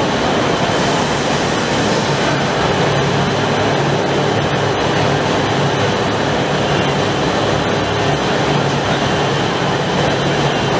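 Three-layer blown film machine running: a steady, loud mechanical noise with a low hum underneath.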